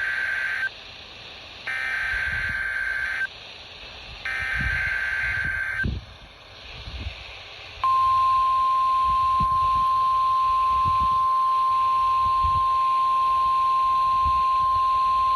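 NOAA Weather Radio Required Weekly Test: the end of one buzzy EAS/SAME data burst and then two more, each about a second and a half long with a second of radio hiss between them. From about eight seconds in comes the steady single-pitch 1050 Hz warning alarm tone.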